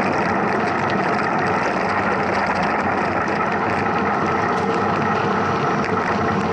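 Steady rushing noise of a mountain bike being ridden: wind on the microphone and tyres rolling over the trail, with a few faint rattles.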